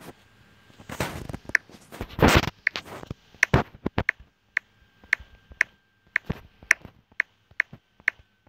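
Key presses on a smartphone's touchscreen keyboard as an email address is typed, a short sharp click for each key at about two a second. Two longer, louder bursts of hiss come around one and two seconds in.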